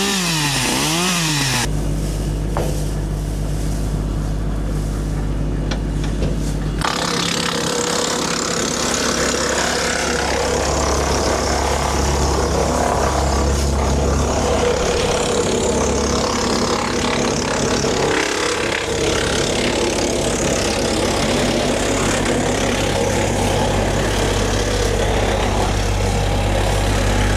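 A chainsaw rising and falling in pitch for the first second or so. Then an engine-driven wood chipper runs steadily, with a noisy rush over its engine hum from about seven seconds in.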